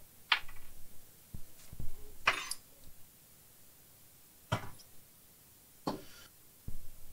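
Workbench handling noises: about half a dozen short, light knocks and clicks at irregular intervals, a couple of them slightly longer scraping or rustling sounds.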